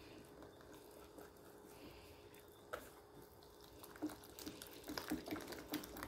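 Wire whisk stirring thick pancake batter in a plastic bowl: faint wet stirring with a few soft clicks of the whisk against the bowl, more of them in the second half.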